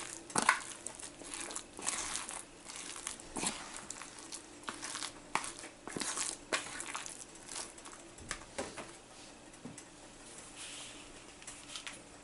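Metal spoon stirring coarse, wet chana dal paste and chopped onion in a plastic tub: irregular scrapes and clicks of the spoon against the plastic, thinning out over the last few seconds.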